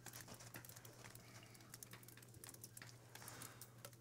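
Near silence: faint background hiss with scattered faint ticks and a low steady hum.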